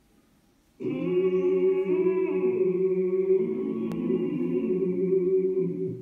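Music: several voices singing a held chord without instruments, coming in about a second in and fading out near the end.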